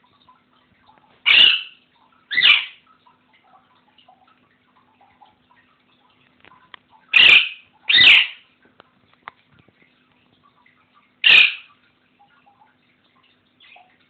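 Pet parrot squawking: five short, loud calls, two pairs about a second apart and then a single call near the end.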